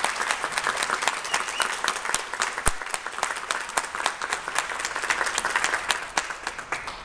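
Audience applauding, a dense patter of many hands clapping that thins and fades out near the end, with one sharp click a little under three seconds in.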